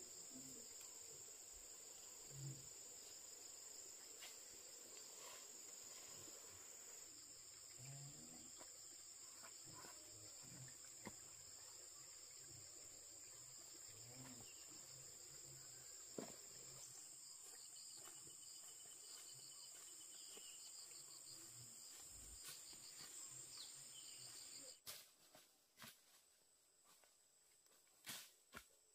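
Faint, steady high-pitched insect chorus that cuts off suddenly about 25 seconds in, followed by a few light knocks and clicks.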